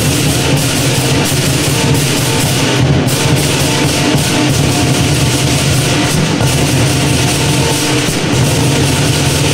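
Loud lion dance music: a pounding drum with crashing cymbals in a dense, continuous beat that starts abruptly just before this moment.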